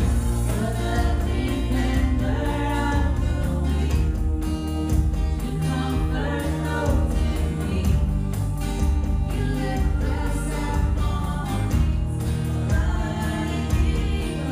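Gospel-style worship music: a choir singing a melody over instrumental backing with sustained bass notes and a steady beat.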